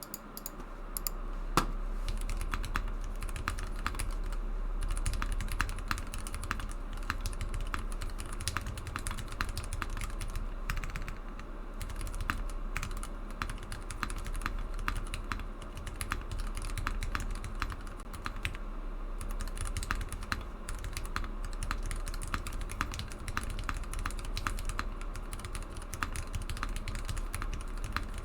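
Continuous fast typing on a custom mechanical keyboard with Gateron milky-top yellow linear switches lubed with Krytox 205G0, on an aluminium plate with no foam. One keystroke about a second and a half in is louder than the rest.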